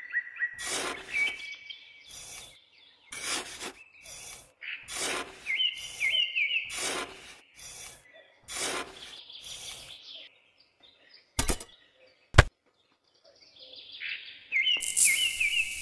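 A miniature trowel scraping and scooping sand into a small tin bucket, about one stroke a second, with birds chirping throughout. Two sharp clicks come just past the middle, and near the end the sand is poured out of the bucket in a longer rush.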